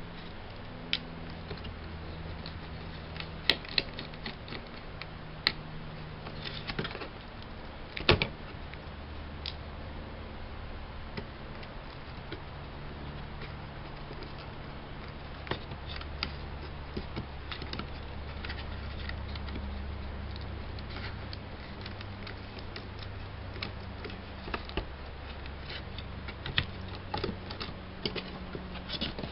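Scattered light clicks and taps from laptop parts being handled during disassembly, over a low steady hum.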